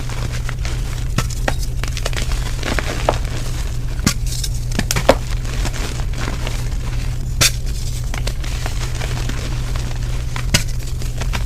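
Soft gym chalk reforms being crushed, giving scattered crisp crunches and crackles over a steady low hum.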